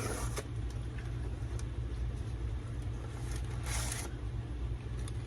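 Steady low rumble, with two brief rustles of paper being handled: one at the start and one a little before four seconds in.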